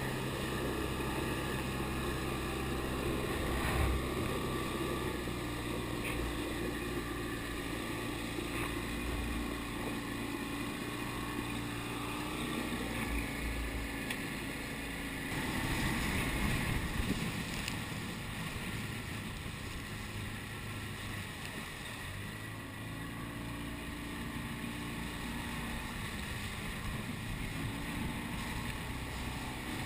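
Outboard motor of an inflatable chase boat running under way, with wind on the microphone and water rushing past the hull. The motor's steady note shifts around the middle, and a louder rush of wind and water comes about fifteen seconds in.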